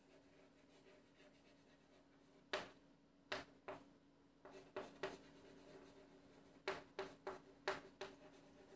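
Handwriting a heading: faint, short writing strokes in several small clusters, starting a couple of seconds in, over a faint steady hum.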